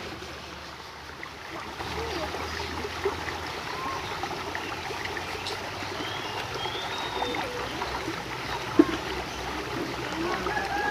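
River water flowing steadily, with one sharp click about nine seconds in.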